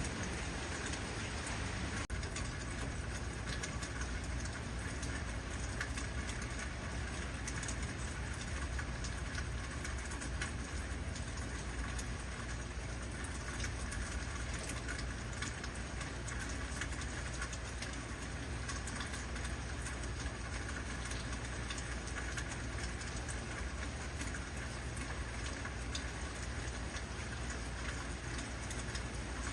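Heavy rain falling steadily, with a constant low rumble underneath.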